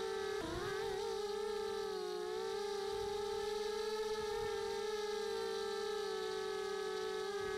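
Electric motors and propellers of a small RC aircraft in flight, heard through its onboard camera: a steady high whine with overtones. The pitch dips sharply and recovers about half a second in, then holds with slight wavering as the throttle shifts.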